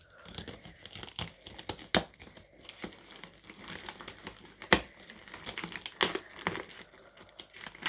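Packaging being handled while a parcel is unpacked: irregular crinkling and rustling throughout, with a few sharp cracks, the loudest a little under five seconds in.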